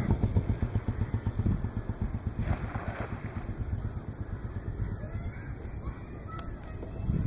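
A motor engine's rapid, even throbbing that fades steadily away over several seconds as it passes and recedes.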